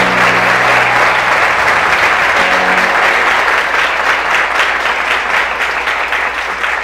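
A large audience applauding steadily, with a few musical notes underneath; the clapping thins into more separate claps near the end.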